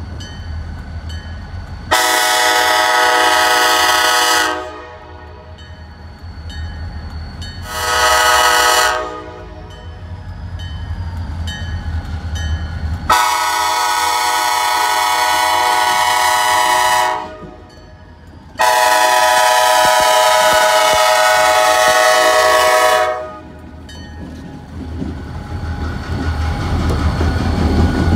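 Freight locomotive air horn sounding four blasts, the second one short (long, short, long, long). Under the horn the train's low rumble grows louder near the end as it comes closer.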